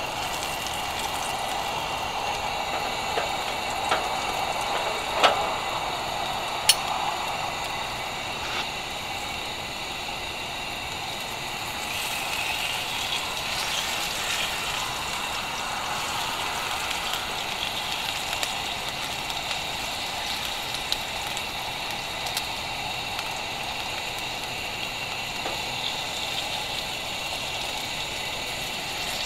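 Thick dry-cured bacon sizzling and crackling in a frying pan on a camp stove, steady throughout, with a few sharp clicks and knocks of a utensil against the pan, loudest about five seconds in.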